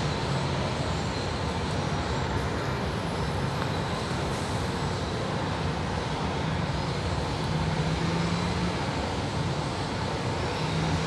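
Steady background rumble of city traffic and rail noise while a metro train approaches along the elevated track in the distance, with a low hum that swells a little about two-thirds of the way through.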